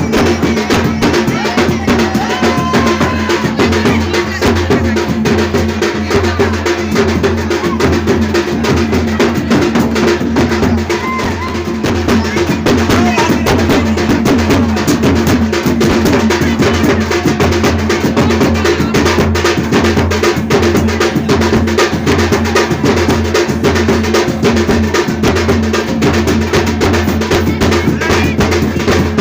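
Loud drum-led music with dense, steady drum strikes, with voices mixed in.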